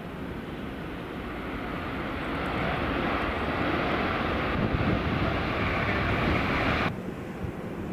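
Jet aircraft engines: a rush of noise that swells over the first few seconds as a plane passes, then cuts off suddenly near the end, leaving a quieter rumble.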